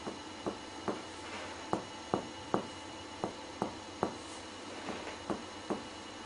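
Finger-on-finger percussion of a patient's chest wall during comparative lung percussion: short dull knocks about two and a half a second, with a brief pause a little past four seconds in. The lungs give a clear pulmonary percussion note, the normal finding.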